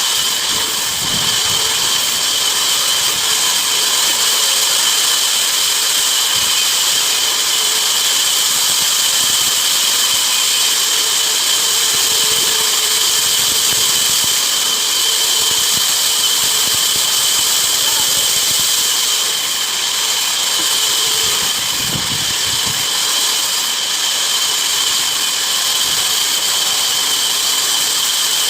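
Band saw cutting wood: a steady high-pitched whine over a constant hiss of cutting, without let-up.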